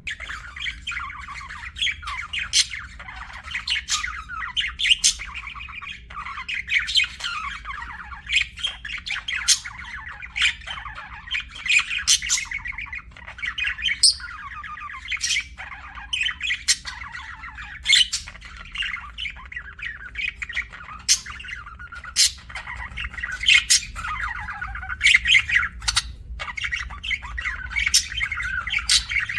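Budgerigars chattering and warbling without a break, with sharp high chirps and squawks cutting in about once or twice a second.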